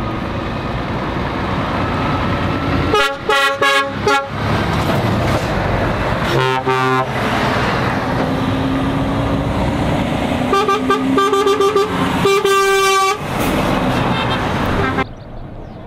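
Lorry diesel engines pulling away, their pitch rising and falling, while air horns sound several times: a quick run of short blasts about three seconds in, a single blast a few seconds later, then another run of short blasts and a longer held blast near the end.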